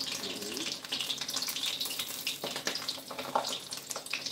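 Breaded rice balls (arancini) deep-frying in hot oil in a stainless steel pot: steady sizzling with fine crackles.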